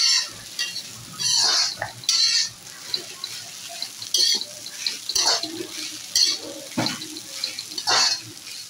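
Steel spoon stirring poha (flattened rice) in a metal kadhai, scraping the pan in uneven strokes about once a second, with a light sizzle underneath.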